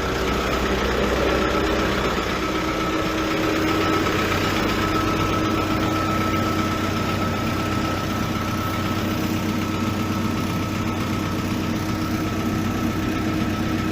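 Diesel engine of a 2008 New Holland LB115.B backhoe loader running steadily at an even speed, with no revving. This is an engine with a complaint of knocking and blue-grey smoke.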